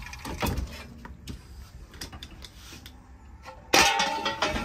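Old metal dishes and junk being handled and shifted by hand: a few light knocks and scrapes, then a loud metallic clatter near the end that rings briefly.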